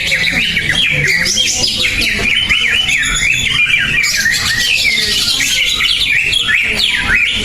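Cucak ijo (green leafbird) singing a fast, unbroken song of quick rising and falling whistled notes.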